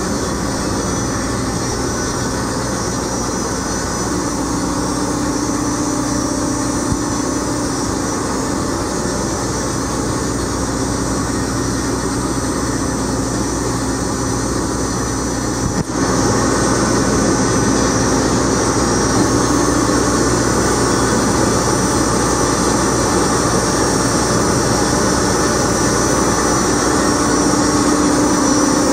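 Peerless HS28HD triple roller bar dough mixer running empty, its drive humming steadily as the bowl tilts. There is a click and a small step up in loudness about sixteen seconds in.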